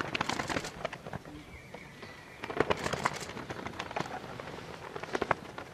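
Large ceremonial flags being swung and swept, the flag cloth flapping and snapping in sharp cracks that come in three spells: at the start, around the middle, and near the end.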